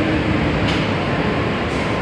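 New York City subway train running along the track through an underground station: a steady rumble of steel wheels on rail.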